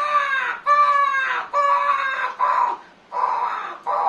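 A man's vocal imitation of a hen's panicked alarm squawking, as when a predator seizes it. About five loud cries in a row, each sliding down in pitch, the later ones hoarser.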